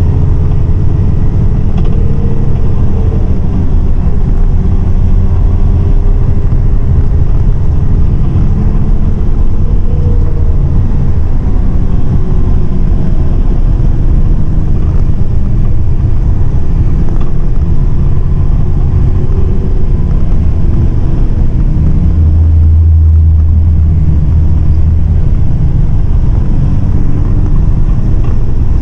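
MAN 18.350 bus heard from inside the cabin while driving: a steady diesel engine drone and road rumble, with a wavering mid-pitched engine note on top. The low engine note swells for a few seconds about three-quarters of the way through.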